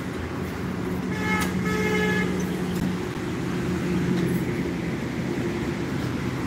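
Road traffic running steadily, with a vehicle horn honking twice in quick succession about a second in.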